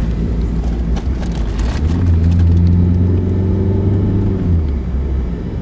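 Car driving at speed heard from inside the cabin: a steady low rumble of tyres and engine. About two seconds in, a deeper, even engine drone swells up, holds, and fades out about four and a half seconds in.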